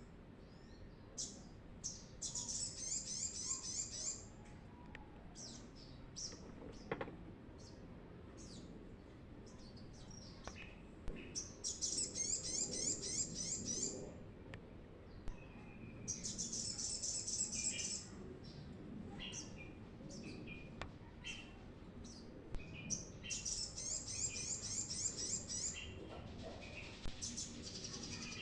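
Brown-throated sunbird (kolibri kelapa) singing: four fast, high twittering song phrases of about two seconds each, with short single chirps between them.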